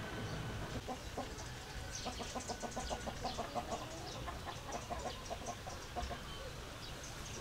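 Chickens clucking, a long run of short, quick clucks that fades out near the end.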